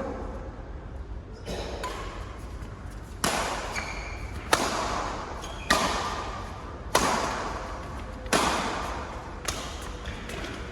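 Badminton rally: six sharp racket strikes on the shuttlecock, about one every second and a quarter, starting about three seconds in, each echoing briefly.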